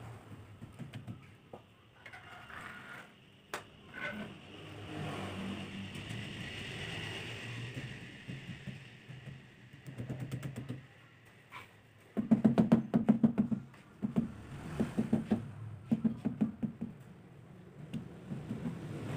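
Irregular knocking and tapping on hard material, with a louder rattling run of rapid taps in several short spells about two-thirds of the way through.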